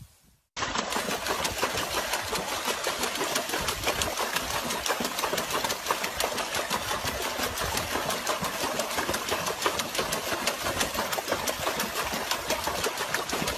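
Fast, continuous splashing of water as a dog paddles its front paws in a plastic tub, starting about half a second in.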